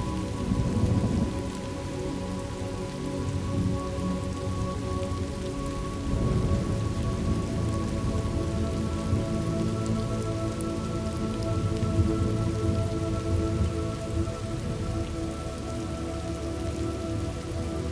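Steady rain with low rumbles of distant thunder swelling about half a second in and again around six seconds, over soft sustained tones.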